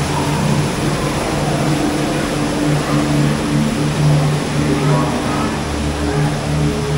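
Dark boat ride ambience: a steady rushing hiss with low droning hum tones that come and go, and a deeper hum joining near the end.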